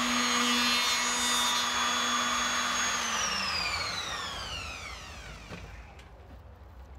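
Small handheld router running at full speed with a steady high whine, then switched off about three seconds in. The whine falls in pitch as the motor spins down and dies away about two and a half seconds later.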